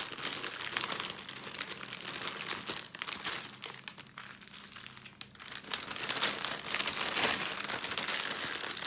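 Crinkling of small clear plastic zip-lock bags of diamond painting drills and loose plastic wrap as they are picked up and shuffled by hand, with a short lull around the middle.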